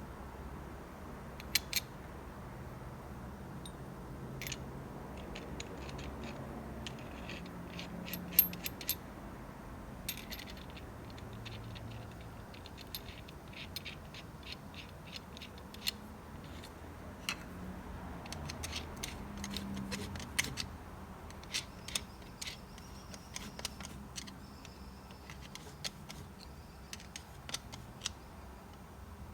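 Scattered light clicks and taps from hand work on small parts, irregularly spaced, over a faint low hum.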